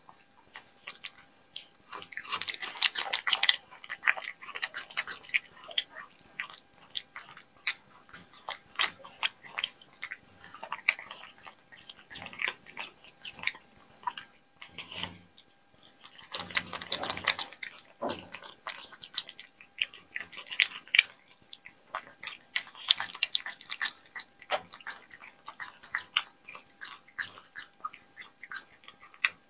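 A cat biting and chewing chunks of raw meat close to the microphone: a run of wet clicks and smacks, with busier spells of chewing about two seconds in, around sixteen seconds and around twenty-two seconds.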